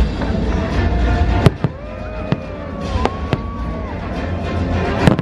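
Fireworks bursting overhead in about five sharp bangs, the loudest about one and a half seconds in, over loud orchestral show music with held notes.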